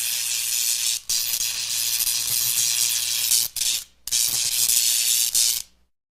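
Electricity sound effect: a harsh, high electric crackling hiss over a faint low hum, broken briefly about a second in and again around three and a half seconds in, then cutting off shortly before the end.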